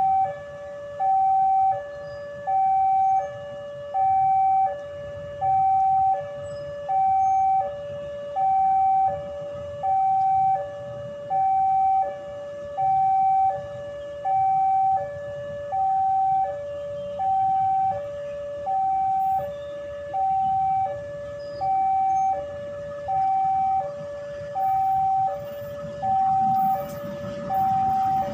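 Railway level-crossing warning alarm sounding its steady two-tone call, a higher and a lower note alternating evenly about once a second each, warning of an approaching train. A train's low rumble grows under it near the end.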